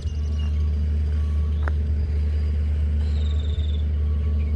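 A steady low rumble, with faint bird chirps near the start and a short high trill of chirps about three seconds in.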